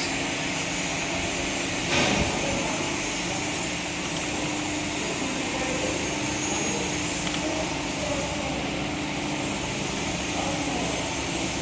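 Steady background machine noise, an even fan-like hiss with a low hum, with a single sharp click about two seconds in.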